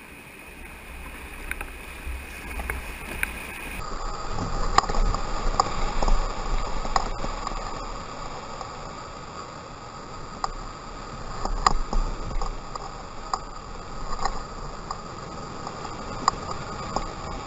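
Whitewater rapids rushing around a kayak, growing louder about four seconds in as the boat enters the foaming drop, with scattered sharp knocks and splashes from the paddle strokes.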